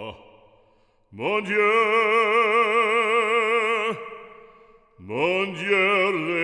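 Background music: a male operatic voice singing long held notes with wide vibrato, one starting about a second in and lasting nearly three seconds, another beginning near the end.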